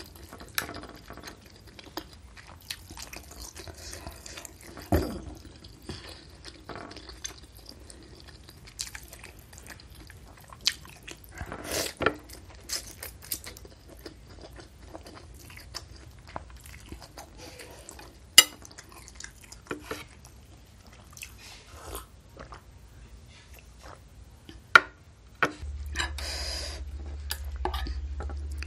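Close-up eating sounds of a bowl of bakso with noodles: a metal spoon clinking against the bowl, noodles and broth slurped and chewed, with sharp clicks scattered throughout. A steady low hum comes in near the end.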